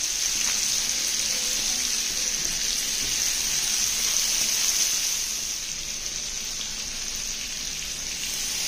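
Chicken and spice masala sizzling in oil on a tawa: a steady frying hiss that eases off a little about five seconds in.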